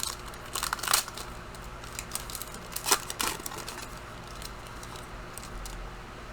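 Trading cards and pack wrapper being handled: short crisp rustles and card flicks, the loudest about one second and three seconds in.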